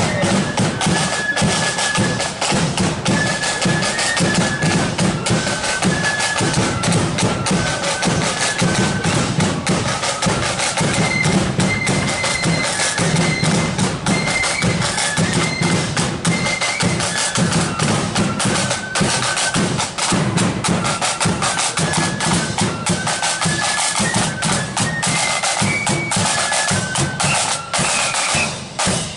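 Marching flute band playing a tune: flutes carry the melody over snare drums and bass drums beating steadily. The playing stops right at the end.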